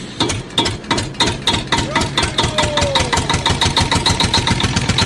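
A small engine running with an even, rapid knock, about eight beats a second.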